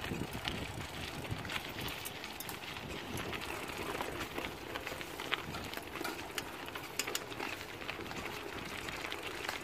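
Bicycles rolling along a dirt forest trail: tyre noise over the ground, with frequent small clicks and rattles from the bikes.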